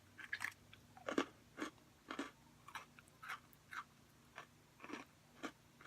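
A person chewing a crunchy sandwich cookie (a Cherry Cola Oreo) with the mouth close to the microphone: soft, crisp crunches about twice a second in a steady rhythm.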